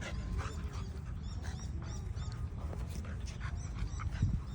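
Two dogs play-wrestling: panting and short whines, with a low growl about four seconds in.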